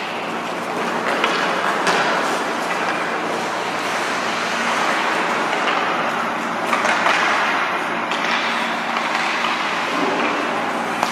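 Ice hockey rink sound: a steady scraping haze of skates on the ice, with a few sharp clacks of sticks and puck.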